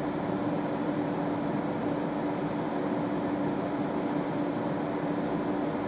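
Steady background hum with one constant tone, unchanging throughout.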